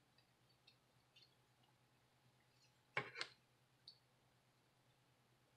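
Small plastic clicks as a SIM card is pushed into its slot in an LG K120 cellphone: a pair of sharp clicks close together about three seconds in, with a few faint ticks of fingers handling the phone's plastic frame around them.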